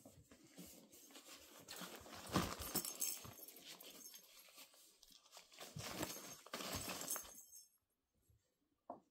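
Irish terrier puppies scrambling on and around a nylon pop-up cat tunnel: irregular rustling and crinkling of the fabric mixed with scuffling paws, loudest about two and a half seconds in, then falling quiet near the end.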